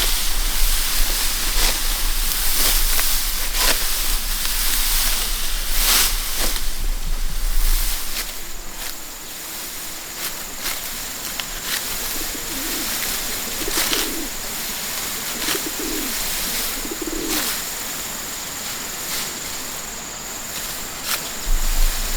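Short, low bird calls repeated several times around the middle, over a steady outdoor hiss with scattered clicks; a thin steady high tone sets in about a third of the way through.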